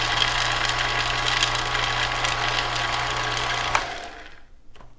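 Small food processor's motor running steadily as it chops basil, pine nuts, Parmesan and garlic into pesto, then switching off a little before the end and winding down.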